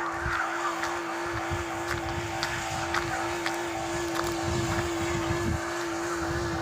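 Small car's engine running with a steady hum and low rumble, with a few light knocks from driving over a rough road.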